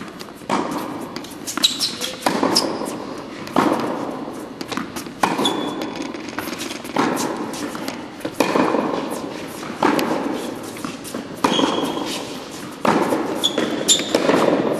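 Tennis ball struck with a racket, a sharp pop about every one and a half seconds through a hitting drill, about ten in all. Each hit rings on in the echo of a large indoor court.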